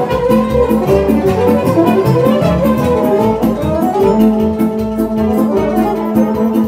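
Live band playing a hora, a lively folk dance tune, on accordion, violin and trumpet with keyboard accompaniment and a steady dance beat.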